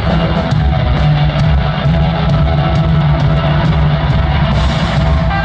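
Live rock band playing loudly: distorted electric guitar over a steady drum beat and bass, with no singing.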